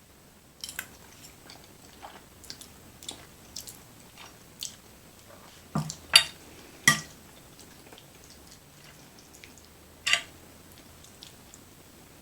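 Eating creamy chicken fettuccine alfredo: scattered short, sharp clicks and taps of mouth and utensil, with the loudest clicks about six and seven seconds in and another about ten seconds in.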